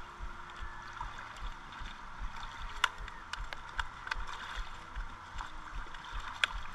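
Kasilof River current rushing past the gravel bank in a steady hiss, with two sharp clicks about three and a half seconds apart.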